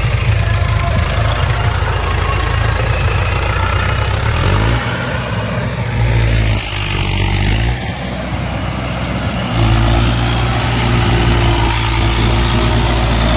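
Swaraj 843 XM tractor's three-cylinder diesel engine running steadily in third gear under heavy load, pulling a puddling leveller through flooded paddy mud. The engine note shifts a little about five seconds in and again near the nine-second mark.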